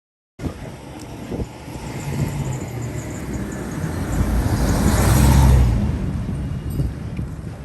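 Road traffic: a motor vehicle passing close, its engine rumble and road noise swelling to a peak about five seconds in and then fading. The sound cuts in abruptly after a brief silence at the start.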